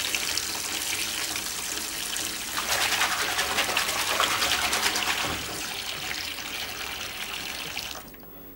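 Bath tap running into a bubble-filled bathtub, a steady rush of water that grows louder for a few seconds, then stops sharply near the end as the tap is turned off.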